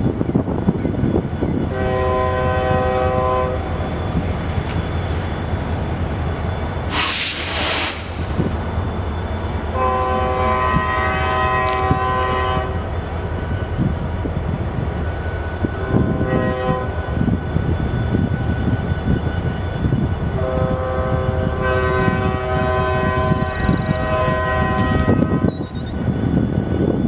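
Distant diesel passenger locomotive (Amtrak P40DC) sounding its multi-note air horn in the grade-crossing pattern as it approaches: two long blasts, a short one, and a final long blast of about five seconds. There is a brief hiss about seven seconds in, and a bird chirps near the end.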